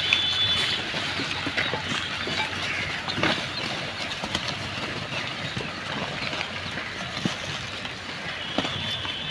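A herd of pigs rooting through a rubbish heap: dense crackling and rustling of plastic and litter as they nose through it and chew. A thin, high, steady tone sounds briefly near the start and again near the end.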